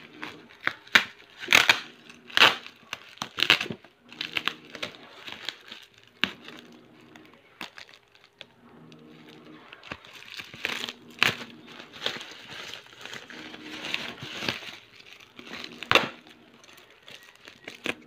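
Thin black plastic bag crinkling and rustling as it is cut open with scissors and pulled apart by hand, in uneven bursts, loudest in the first few seconds and again near the end.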